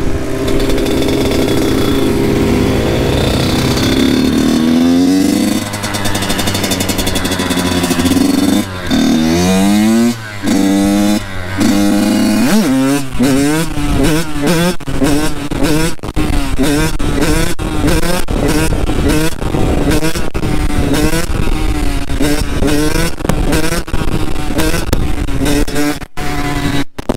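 Kawasaki KX85's two-stroke single-cylinder engine being ridden: its note climbs steadily for the first few seconds, then it is revved hard up and down, and from about halfway the throttle is blipped in quick repeated bursts, about one a second.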